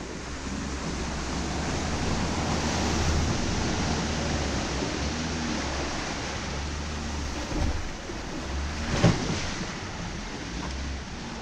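Jeep Wrangler JK driving through muddy trail water, picked up at the hood: a steady rush of water splashing and wind on the microphone over the engine's low rumble. A sharp thump about nine seconds in.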